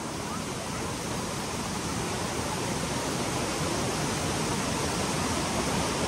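Rushing water of a fast stream tumbling over rocks, a steady rush that grows gradually louder.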